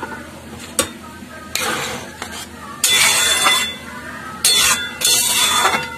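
Flat spatula stirring and scraping through thick chickpea curry in a metal pan, in several rough strokes, with a light knock about a second in.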